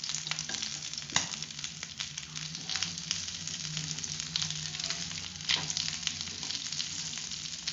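Mutton pieces sizzling and crackling in butter in a non-stick frying pan, with a few sharp clicks as metal tongs turn the pieces over.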